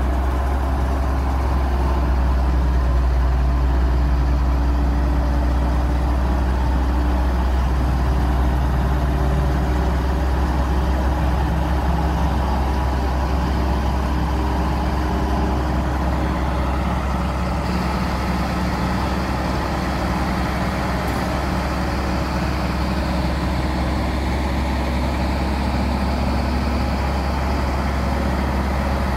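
Hino FG8J dump truck's diesel engine running with a steady low drone, powering the hydraulic hoist as the loaded tipper body is raised to dump sand.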